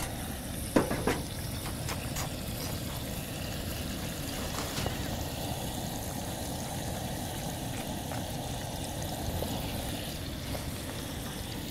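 Steady hiss of a two-burner propane camp stove, with meat and eggs frying in a cast iron skillet. A few light clicks of a spork against a plate about one and two seconds in.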